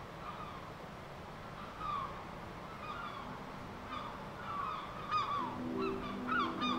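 A flock of waterbirds calling: many short, falling, honk-like calls that overlap, getting busier and louder as it goes. Soft music with held notes comes in about five seconds in.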